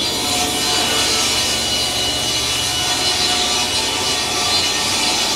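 Grizzly inline (straight-line) rip saw ripping along a chestnut oak board. The steady sawing noise of the blade in the wood starts right at the beginning and continues over the machine's constant whine.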